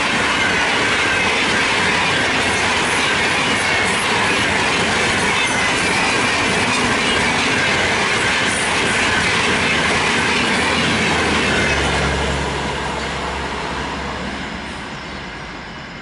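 Passenger coaches of an express train rushing past at speed: a loud, steady rolling noise of wheels on rails. The noise fades away over the last few seconds as the end of the train passes.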